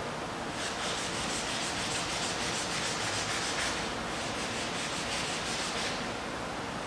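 A hand rubbing and scrubbing across the surface of a canvas in quick, repeated strokes, making a dry, rasping rub.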